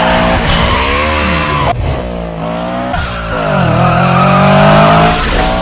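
Mitsubishi Eclipse Spyder's engine revving hard as a film sound effect, its pitch dropping and climbing again a few times as at gear changes, with tires squealing.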